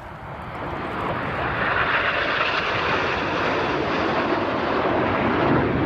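Jet roar of a formation of BAE Hawk T1 jets flying past, building over the first second or two and then holding steady.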